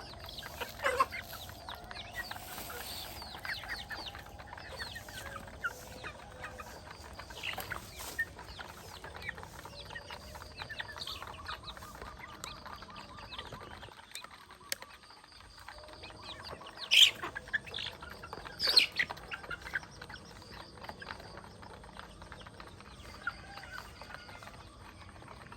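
A flock of chickens clucking and chirping, with a few louder, sharper squawks about a second in and again around seventeen and nineteen seconds.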